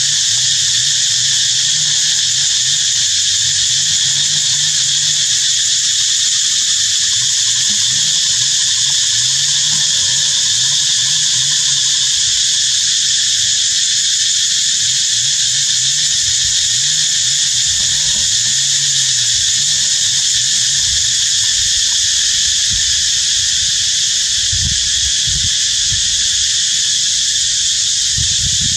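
A dense, steady insect chorus, high-pitched and unbroken, over a fainter low wavering hum.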